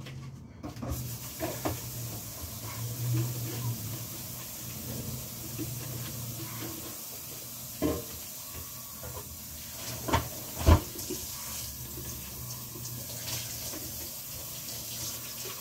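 Kitchen tap running into a sink while glassware is rinsed under it, a steady hiss that starts about a second in. A few sharp knocks, the loudest about two thirds of the way through, come from dishes being handled in the sink.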